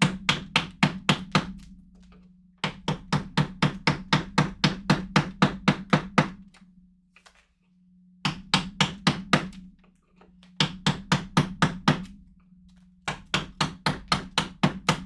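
Mallet striking a wood-carving chisel into wood in quick runs of about five blows a second, broken by short pauses between runs. A steady low hum runs underneath.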